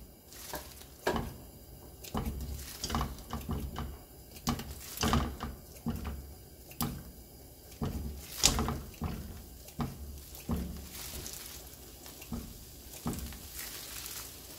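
Kitchen scissors snipping through sundae (Korean blood sausage), the cut chunks dropping into a frying pan with a little oil: an irregular run of short snips and soft landings, the sharpest about eight and a half seconds in.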